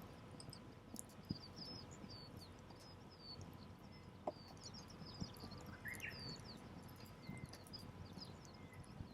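Small birds chirping with many short high notes throughout, over the soft low crackle of a wood campfire, with a few sharp pops from the fire, the loudest about four seconds in.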